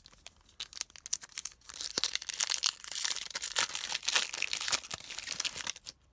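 Foil wrapper of a trading-card pack crinkling and tearing as it is ripped open. A scattered crackle builds into a dense crinkle about two seconds in and stops just before the end.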